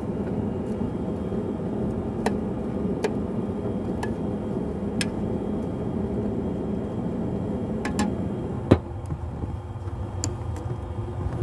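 Metal utensil clicking and clanking against a hot pan as fajita meat is stirred, several sharp strikes spread out, over a steady low rushing noise. A louder clank comes near the end, after which the rushing noise drops a little.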